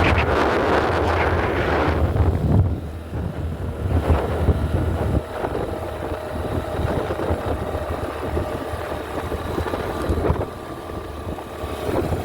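Strong sea wind buffeting the microphone: a loud, rough low rumble that eases a little about two seconds in and then carries on unevenly.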